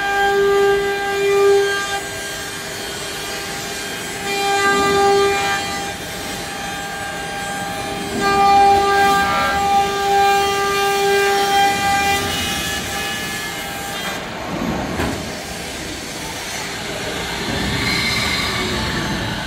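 Spindle of a five-axis CNC cutting machine trimming the edge of a moulded plastic suitcase shell: a steady high whine with overtones that swells and fades several times as the cutter works along the edge, turning noisier near the end.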